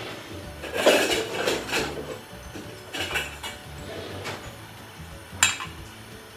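Metal kitchen utensils and cookware clattering and clinking as they are handled, in a couple of bursts, with one sharp clink about five seconds in. Faint background music under it.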